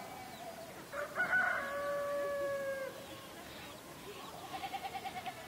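Rooster crowing: one long, loud crow about a second in, held for nearly two seconds, with a fainter crow from another rooster at the start. Near the end comes a shorter, rapidly quavering animal call.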